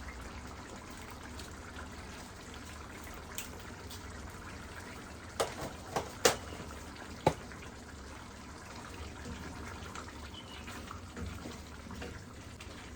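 Beef curry simmering in an open pan, a steady wet bubbling hiss, with a few sharp clinks of a utensil on the pan around the middle.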